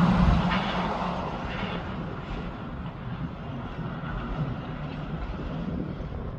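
Tractor-trailer truck's engine and tyres fading as it drives away.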